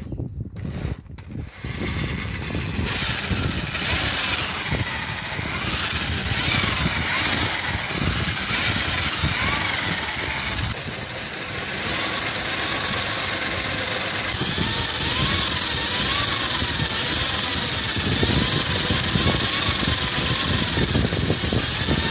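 Electric drill spinning the input shaft of a homemade PVC tandem-axle gearbox, turning the wheels: the drill motor and the gears running together, stopping briefly a few times in the first two seconds and then running steadily, the whine wavering up and down as the drill's speed changes.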